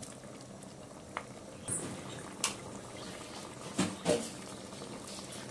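Pot of oha soup simmering on the stove, a steady low bubbling, with a few short light knocks of utensils on the pan or plate.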